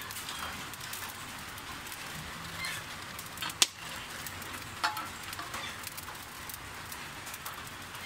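Wood fire crackling with a steady hiss under a boiling pot, scattered with small pops; one sharp click about three and a half seconds in is the loudest sound, and a smaller one follows a second later.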